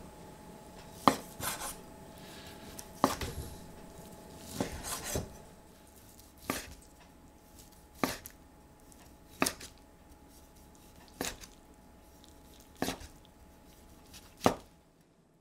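Kitchen knife slicing a pan-fried chicken breast on a bamboo cutting board: slow, evenly spaced cuts, each ending in a sharp knock of the blade on the wood, about one every one and a half seconds.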